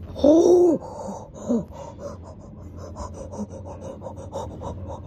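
A person's loud wordless cry of excitement, its pitch rising then falling, a second short cry, then rapid excited panting at about four breaths a second.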